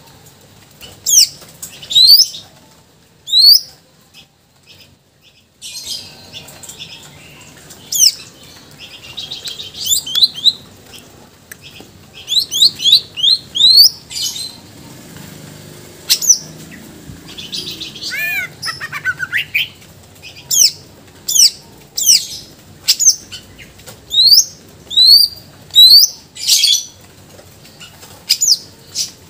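Caged male green leafbird (cucak ijo) in full song: loud, sharp whistled notes sweeping up and down, often in quick runs of three or four, mixed with short scratchy chatter and a falling series of notes, with a brief pause about four seconds in.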